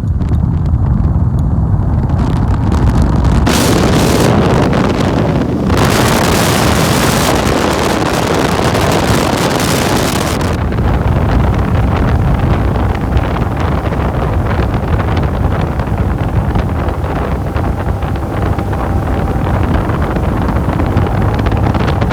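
Bass boat running at speed across open water, with heavy wind buffeting the microphone over the outboard and hull noise. The rush turns brighter and hissier from about three and a half seconds in until about ten seconds.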